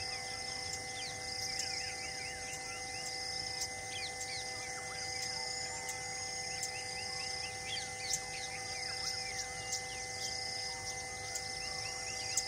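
Outdoor ambience of many small birds chirping in quick falling notes, with a high pulsing call repeating about every second and a half, over a steady hum of a few held tones.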